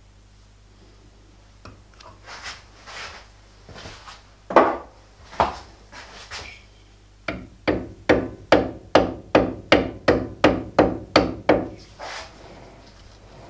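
Hammer taps on a kart engine cylinder mounted on a lathe, knocking it toward centre while it is dialled in with a test indicator. A few scattered knocks come first, then about a dozen quick, even taps, two or three a second, that stop near the end.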